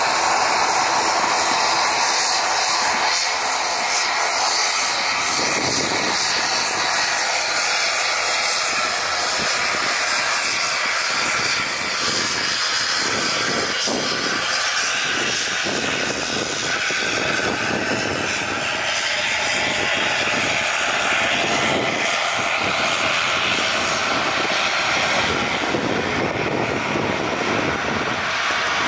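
Airbus A340-600 on final approach to land, its four Rolls-Royce Trent 500 turbofans giving a steady jet engine noise at approach power.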